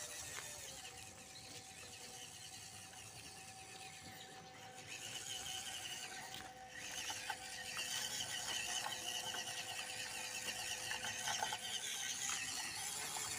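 WPL D12 RC mini truck driving over gravel: its small electric motor and gearbox whine and chatter along with the crunch of the tyres on loose stones. It gets louder about seven seconds in.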